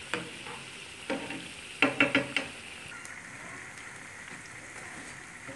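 Potato and gram-flour pakoras deep-frying in hot oil, a steady sizzle from the bubbling oil. A few sharp clicks of a spoon knocking against the crisp pakoras come in, the loudest cluster about two seconds in.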